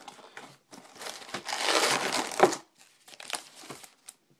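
Trading card packaging crinkled by hand: a loud crinkle about a second and a half in, ending in a sharp snap, then a few light clicks.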